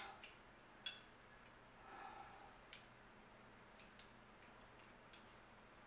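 Ruger SR1911 .45 ACP pistol parts handled during field-stripping: a few faint, sharp clicks against near silence, the two clearest about a second in and just before the middle.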